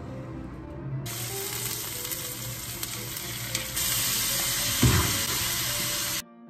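Sliced pork and kimchi sizzling in a hot oiled pan. The sizzle starts about a second in, grows louder as more kimchi is tipped in, has a single thump near the 5-second mark, and cuts off suddenly just before the end.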